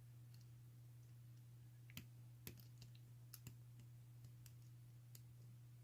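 Faint clicks of lock picks working the pins of a Chinese smiley-face alarm padlock, a handful of scattered ticks in the middle over a steady low hum.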